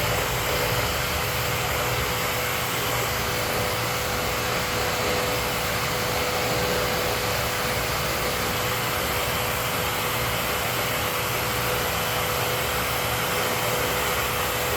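Dust-collection vacuum running steadily, a constant rushing noise with a steady whine underneath, drawing air through a nozzle made from a cola PET bottle.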